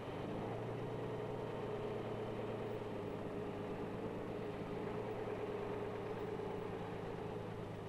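Heavy multi-axle off-road truck's engine running at a steady, even pitch as the truck crawls up a steep sand slope.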